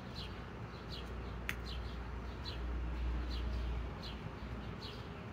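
Small bird chirping over and over, short high chirps that fall in pitch, often in pairs about once a second. Under it a low rumble swells in the middle, and a single sharp click comes about a second and a half in.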